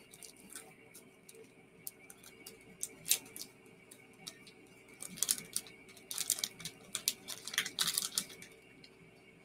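Wrapper of a Bournville Old Jamaica dark chocolate bar crinkling and crackling in the hands as it is opened, in scattered bursts that grow denser from about halfway through.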